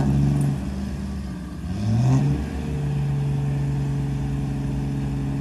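A pickup truck's diesel engine revving while the truck is stuck in mud. Its pitch sags, then climbs sharply about two seconds in and is held high and steady.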